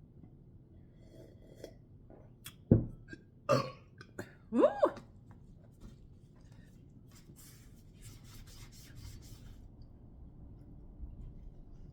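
A woman burping several times in quick succession, the loudest a sudden jolt about three seconds in and the longest a few seconds in with a pitch that rises and then falls. Faint rapid clicking follows for a couple of seconds.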